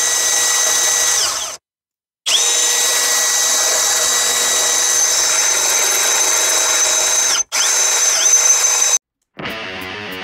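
Electric drill with a cobalt bit drilling through hard steel, its motor giving a steady high whine that breaks off abruptly twice. About nine seconds in, guitar music takes over.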